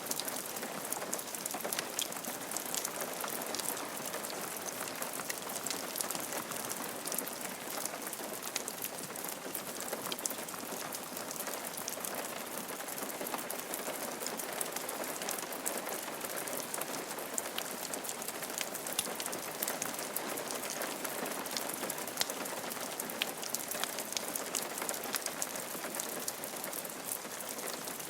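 Steady rain falling on a roof, a dense even patter with many individual drops ticking sharply.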